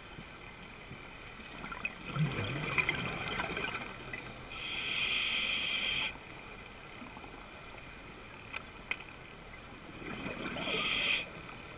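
Scuba regulator breathing underwater: a burst of exhaust bubbles about two seconds in, then a steady hiss of inhalation for about a second and a half that stops abruptly. Two small clicks follow, then another bubble burst and inhale near the end.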